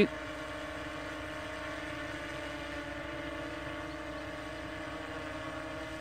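DJI Inspire 2 quadcopter hovering about 100 feet up: its propellers give a steady, even hum with a held droning tone.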